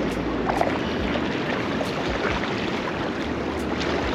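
Shallow water sloshing and splashing around the angler with wind buffeting the microphone, as a small bream is played in close on light line.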